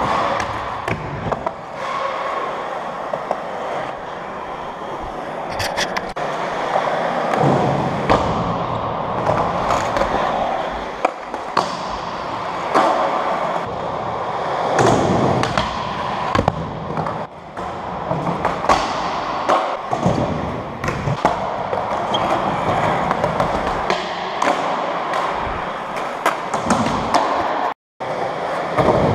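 Skateboard wheels rolling over a smooth concrete floor, a steady rumbling hiss, broken by frequent sharp clacks and thuds of boards hitting the ground.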